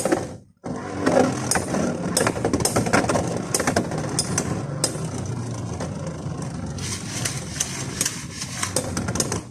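Beyblade X spinning tops whirring and scraping around a plastic stadium, with frequent sharp clicks as they strike each other and the rim. It starts suddenly about half a second in and stops abruptly at the end.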